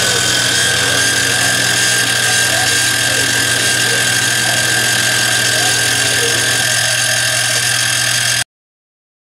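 PM-25MV CNC milling machine running, its end mill cutting a pocket in aluminium plate, with a steady whine and hum. The sound cuts off suddenly near the end.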